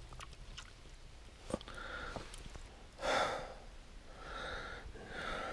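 A person breathing audibly close to the microphone: four soft breaths about a second apart, the second one the strongest, with a single light click before them.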